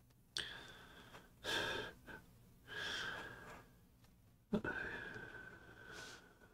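A man breathing close to the microphone: four breaths, the last and longest a drawn-out exhale of about two seconds that starts sharply and fades.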